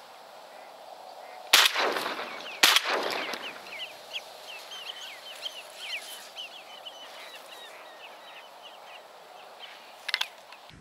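Two shotgun shots about a second apart, each ringing out, followed by a quick chatter of many short, high bird calls. A brief sharp clatter comes near the end.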